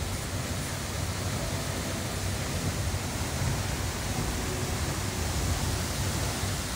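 Waterfall plunging into a pool: a steady, dense rush of falling water with a heavy low rumble.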